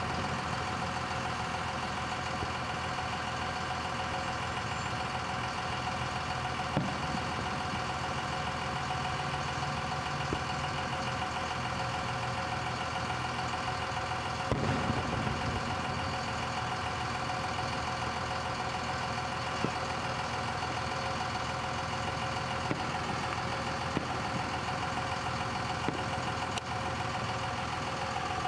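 Fireworks going off at a distance: a few short dull booms, the loudest about fifteen seconds in, over a steady mechanical hum with several fixed tones, like an idling engine.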